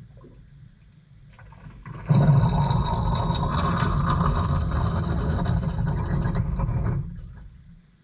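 Water rushing into the tub of an LG top-loading washing machine, heard from inside the tub. It starts suddenly about two seconds in, runs steadily for about five seconds, then dies away.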